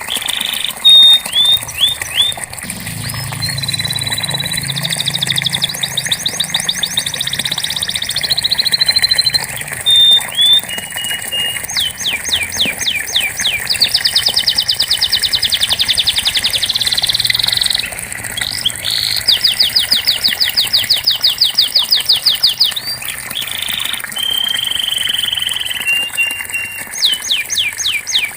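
Domestic canary singing a continuous high-pitched song of rapid trills and rolls, alternating fast repeated notes with short slurred whistles.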